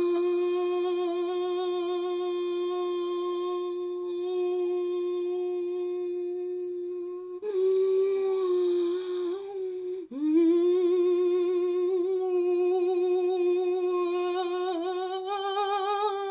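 A voice humming long, steady notes at one pitch as sound-healing toning. The first note breaks off about seven seconds in, and after a short changing passage a second long note follows with a slight waver.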